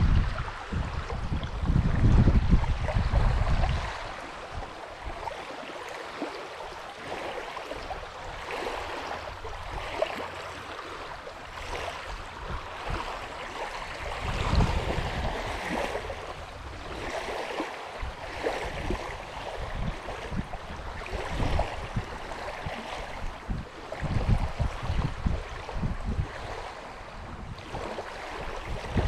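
Wind gusting against the microphone, heaviest in the first four seconds and returning briefly a few times, over small waves lapping steadily on a gravel shore.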